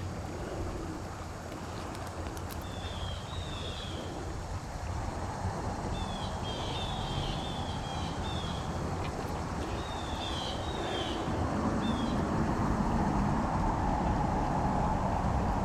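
A bird calling in clusters of short, high, falling chirps, two to five at a time, over a steady low rumble of wind and outdoor noise.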